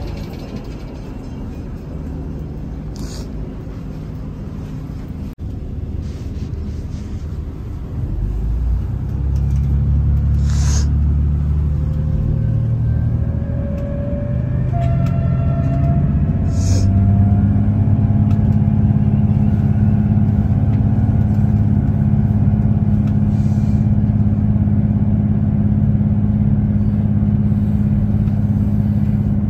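Passenger train pulling away from a station and gathering speed, heard from inside the carriage. A low rumble builds about eight seconds in, a rising whine follows, and then it settles into a steady low drone at speed. A few short sharp clicks come along the way.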